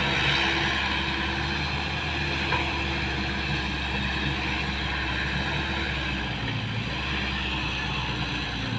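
Diesel dump truck engine running steadily, with a slight dip in pitch about six to seven seconds in.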